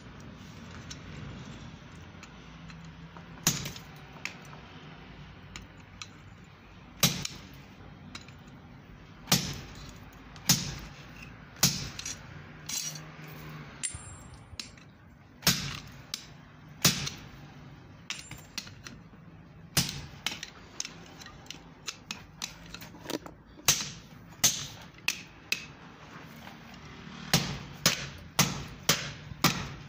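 Hand hammer striking red-hot steel on an anvil: single blows spaced a second or more apart at first, then a quick run of blows about two or three a second near the end. A low steady hum runs underneath.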